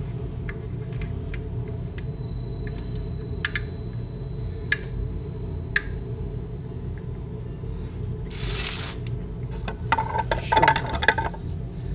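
Small metal clicks and scrapes of a hand tool working on a small air-cooled engine's crankshaft end, with a short scrape about eight seconds in. Near the end the engine is knocked and scraped as it is tipped over on the wooden bench, all over a steady low hum.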